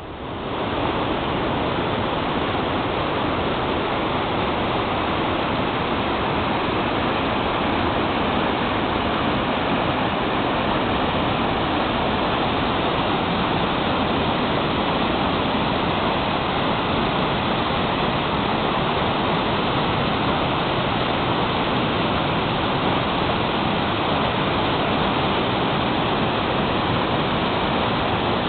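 Swollen river in flood after two days of rain, its turbulent brown water rushing and churning over rapids in a steady roar. The sound rises to full level within the first second.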